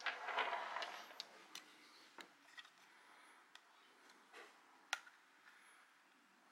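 Close-up handling of a plastic LED headlamp: a short burst of rubbing and rustling in the first second, then scattered small plastic clicks as the lamp body is worked on its tilting bracket, the sharpest about five seconds in.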